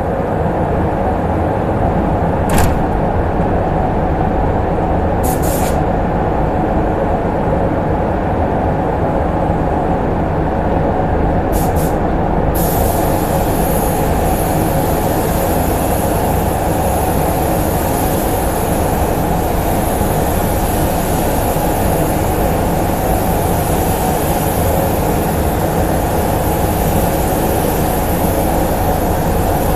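Paint-booth ventilation running steadily and loudly. A paint spray gun gives a few short hisses of compressed air, then from about a third of the way in it hisses continuously as it sprays paint onto the car body.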